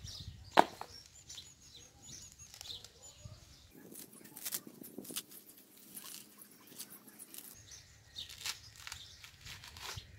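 A dried coconut being broken open by hand: one sharp crack about half a second in, then a few fainter knocks and rustles of the dry husk and shell.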